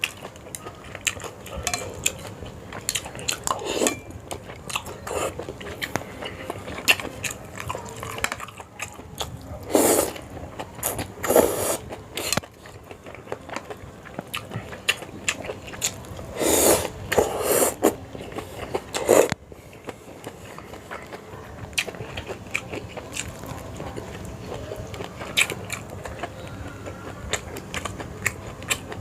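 Close-up eating of a bowl of Sarawak laksa: wet chewing and mouth clicks throughout, with a few louder slurps of noodles and broth about a third of the way in and again past the middle.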